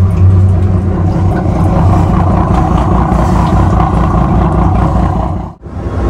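Steady, loud drone of a ferry's diesel engine running at speed on board the ship. The drone drops out abruptly for an instant near the end, then resumes.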